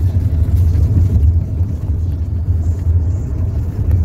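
Steady low rumble of a car driving along the road, heard from inside the cabin: engine and tyre noise.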